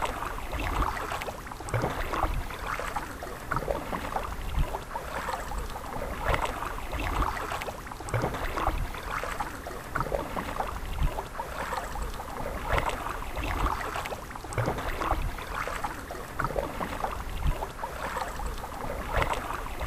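Kayak paddle strokes through calm water, splashing and dripping every second or two as the blades dip in and pull through.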